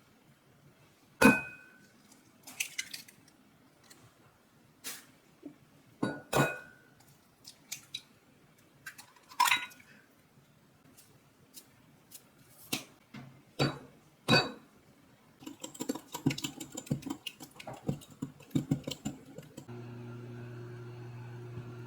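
Kitchen dishes and utensils being handled: separate sharp clinks and knocks, some ringing briefly, then quicker clattering. A steady low hum starts near the end.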